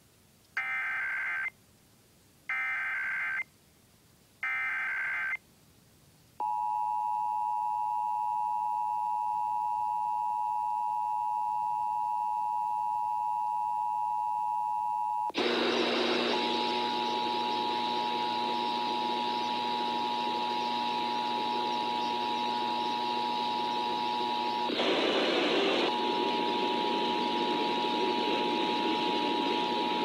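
Emergency Alert System broadcast: three one-second bursts of SAME digital header data, then the two-tone EAS attention signal (853 and 960 Hz) held steadily. About halfway in, a loud hiss with further tones joins the attention signal, and near the end a noisy break interrupts the tones for about a second.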